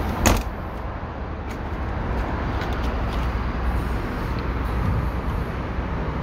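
A single sharp click about a quarter-second in as a motorhome's storage compartment door latch is released, over steady outdoor background noise with a low rumble.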